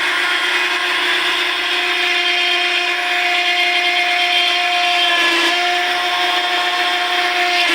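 Hydraulic rear-axle assembly machine running with a steady whine. It has just been switched on and has not yet started pressing.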